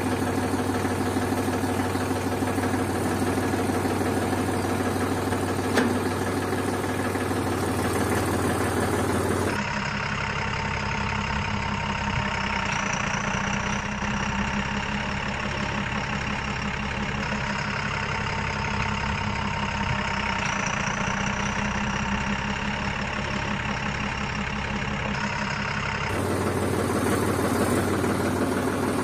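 Steady diesel engine idling sound, as laid over toy tractor footage. About ten seconds in it cuts to a different engine idle with a faint high whine that rises and falls, and near the end it cuts back to the first engine sound.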